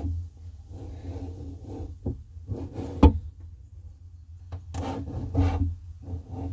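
Handling noise: the camera rubbing and bumping against hoses and fittings as it is worked in close around the driveshaft. There are irregular scrapes and a few sharp knocks, the loudest about three seconds in.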